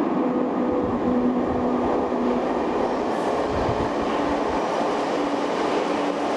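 Passenger train running at a steady speed: an even rumble with a faint whine that shifts in pitch.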